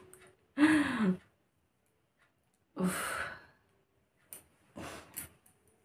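A woman's voiced sigh falling in pitch, then a breathy exhale and a few short sniffs and breaths near the end as she tries to bring on a sneeze. The attempt fails and no sneeze comes.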